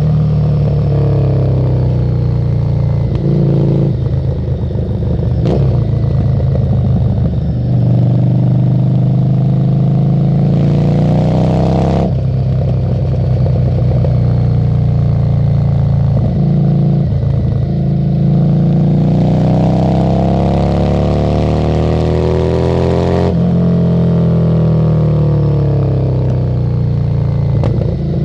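Harley-Davidson Street 750's V-twin engine through a Screamin' Eagle exhaust under riding load. The engine speed rises and falls as the throttle is worked, with a long climb in pitch that breaks off sharply near the end, as at a gear change or closed throttle.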